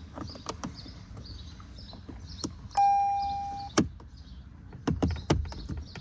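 Sharp clicks as an aluminum start-button cap is pushed and snapped onto a Lexus RC F's push-button start. About three seconds in, a single electronic beep from the car lasts just under a second, followed at once by the loudest click, and a few more clicks come near the end.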